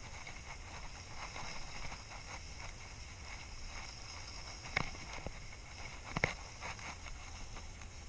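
Skis sliding slowly over snow, a soft steady hiss. Two sharp knocks come a second and a half apart past the middle.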